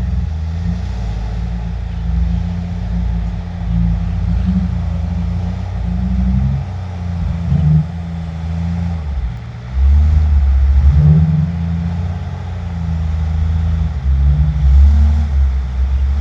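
Heavy diesel dump truck engine pulling hard under load as it climbs out of a pit. Its low drone rises and falls in pitch, with louder surges about ten and fifteen seconds in.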